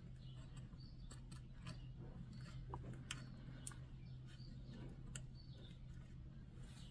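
Faint scattered small clicks and light taps of hand tools being handled on a workbench, over a steady low hum.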